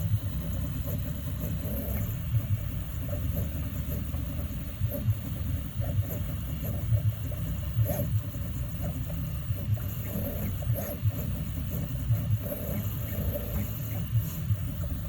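Prusa i3 MK3S+ 3D printer running with a strange noise: a low rumbling vibration broken by frequent irregular sharp knocks. The X and Y axes are already greased and the belts correctly tensioned, and the owner wonders whether the noise comes from the extruder.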